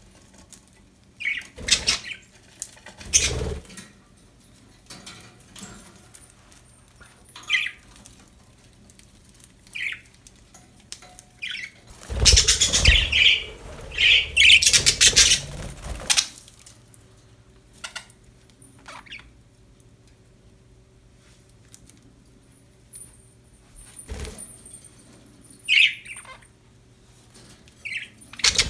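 Pet budgerigars giving short, scattered chirps. Midway there is a loud burst of wing flapping and rustling of about four seconds, with chirps over it, and a few brief knocks.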